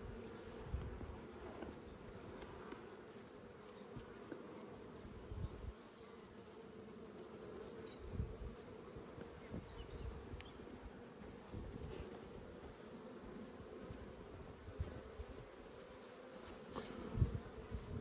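Honeybees buzzing steadily around an opened hive, a faint even hum, with occasional soft low bumps.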